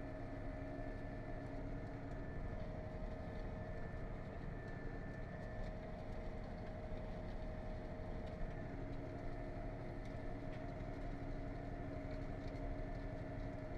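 Massey Ferguson tractor engine running steadily under load while pulling a disc harrow, heard from inside the cab.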